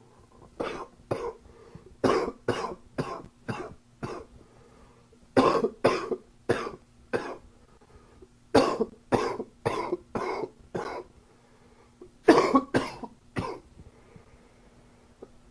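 A man coughing from a summer cold in about five fits. Each fit is a quick run of two to six coughs, about two a second, with pauses of a second or so between fits.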